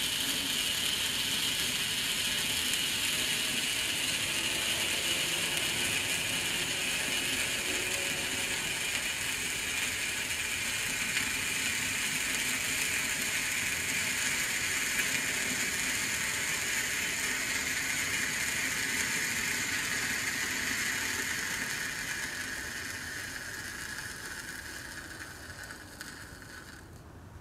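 Broekhoff Profi Torch Red, a category 1 red Bengal flare torch, burning with a steady hiss whose pitch slowly sinks. It fades over the last several seconds and stops near the end as the torch burns out.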